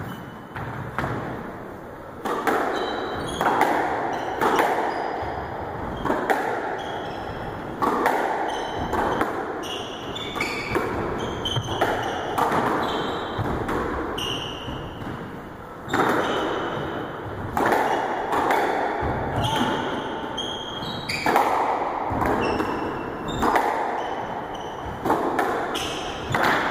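A squash rally: the ball cracks off rackets and the court walls about once a second, each hit echoing round the court, with sneakers squeaking on the wooden floor between shots.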